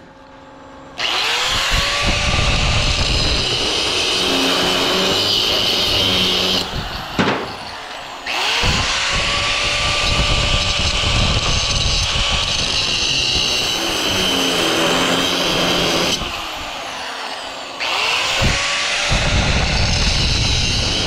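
Power tool cutting through the weld seam of a rusty steel transformer case, run three times for several seconds each, each run opening with a rising whine as the tool spins up.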